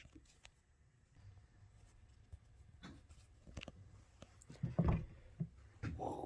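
Scattered clicks and knocks of hand tools working on a bicycle rear hub, light taps with a louder cluster of knocks about two-thirds of the way through and another near the end.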